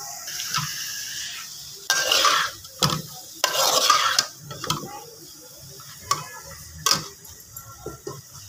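A perforated steel spoon stirring and scraping mashed potato filling around a steel kadhai, with two long scrapes about two and three and a half seconds in and a few sharp clinks of metal on metal. A soft sizzle from the hot ghee in the pan runs underneath.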